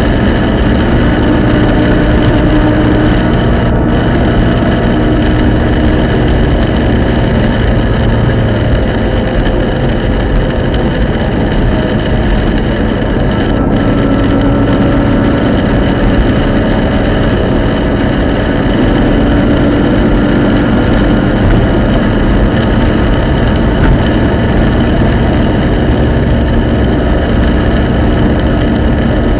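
Subaru Impreza GC8 running steadily, with drivetrain noise and a hum that fades in and out several times: the abnormal noise of a faulty centre differential.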